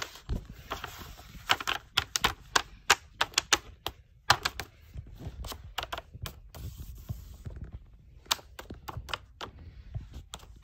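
Handmade paper blind bag being handled and touched on a desk: irregular crinkling of the paper and sharp tapping clicks, thick for most of the stretch and thinning out near the end.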